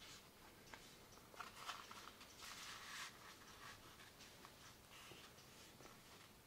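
Faint rustling and crinkling of a sheet of paper being folded over diagonally by hand, busiest between about one and a half and three seconds in, with a few soft taps.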